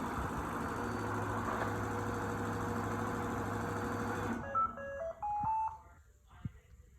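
Shark AI VACMOP robot vacuum running its motors with a steady hum, which cut off suddenly about four seconds in. A short chime of stepped electronic beeps follows as it docks.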